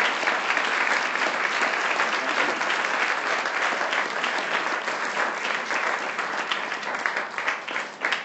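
Audience applauding, a dense crowd of hand claps that thins out near the end.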